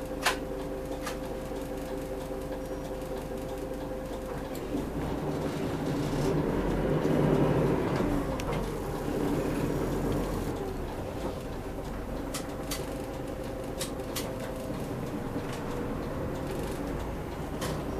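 A city route bus heard from inside the passenger cabin: engine and drivetrain running steadily. The engine noise swells for a few seconds around the middle and then settles, with a few short clicks and rattles from the cabin.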